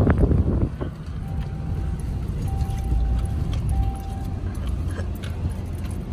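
Ram pickup truck driving over beach sand, heard from inside the cab as a steady low rumble, after a brief gust of wind noise at the start. Three steady tones, each about a second long, sound in the middle.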